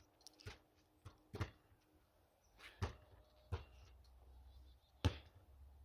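A basketball bouncing on asphalt: a few scattered faint thuds, then a louder knock about five seconds in.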